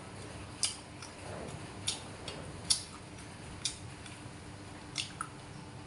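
A metal spoon clinking against a ceramic rice bowl while scooping food, six light clicks about a second apart.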